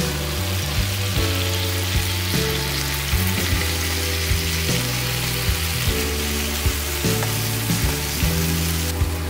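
Chicken tenderloins and garlic sizzling in a soy-based sauce reducing in a frying pan, a steady hiss, with background music's low notes underneath.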